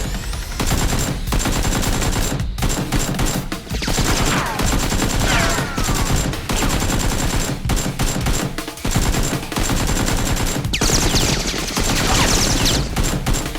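Rapid bursts of machine-gun-like gunfire, nearly continuous with brief pauses.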